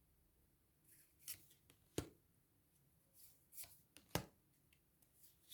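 Tarot cards handled and laid on a table: scattered soft rustles and taps, with two sharper taps about two seconds and four seconds in.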